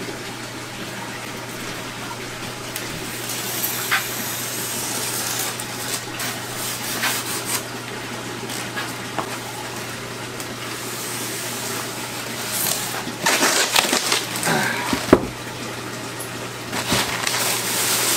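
Styrofoam shipping cooler being worked open by hand: irregular scraping, creaking and rustling of the foam lid and box, busiest a few seconds before the end. A steady low hum runs underneath.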